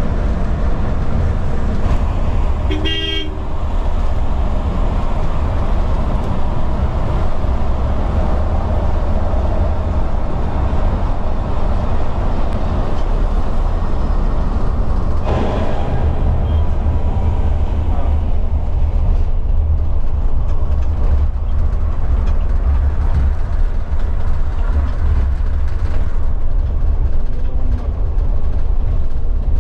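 Steady low rumble of road and tyre noise inside the cab of a KSRTC Olectra electric bus at highway speed, with no engine note. A vehicle horn sounds once, briefly, about three seconds in.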